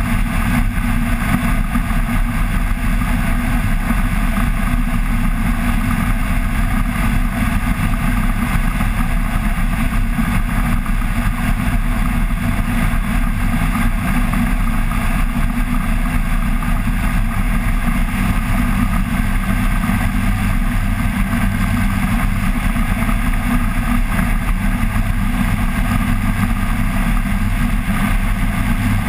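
Flex-wing microlight trike's rear-mounted pusher engine and propeller running steadily in level flight, an even drone with no change in pitch.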